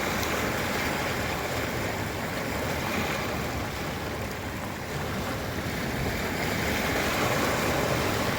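Ocean waves washing onto a beach: a steady rush of surf that swells a little about three seconds in and again near the end.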